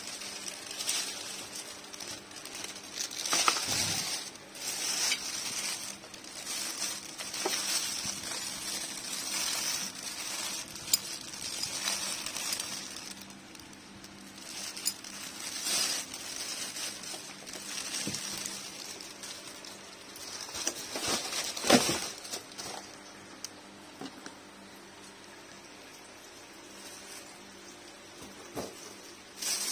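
Clear plastic wrapping crinkling and rustling as the fan's packaged parts are handled, with a few sharp clicks and knocks, the loudest about two-thirds of the way through.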